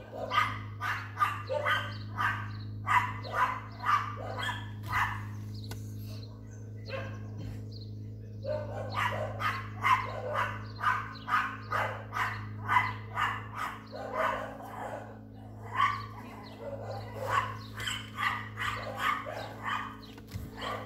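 A dog barking over and over, about two barks a second, in runs broken by short pauses, over a steady low hum.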